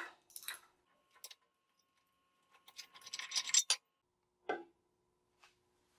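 Ratchet and spark plug socket removing the spark plug from a Briggs & Stratton flathead engine. A few light metal clicks, then a quick run of ratchet clicks and scraping about three seconds in, and a single knock a little later.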